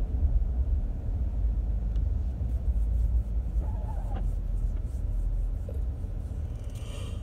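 Low, steady rumble inside a car's cabin, with a few faint, brief small sounds about four seconds in.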